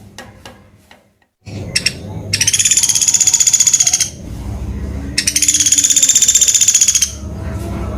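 Pelatuk beras woodpecker calling: two long, rapid, high-pitched trills of about two seconds each, about a second apart.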